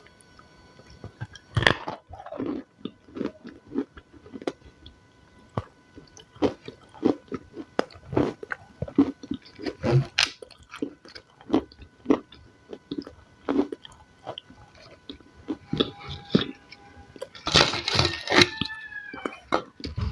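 Close-miked crunchy chewing and biting of raw salad, irregular crisp crackles at a chewing pace, with a louder cluster of crunches near the end.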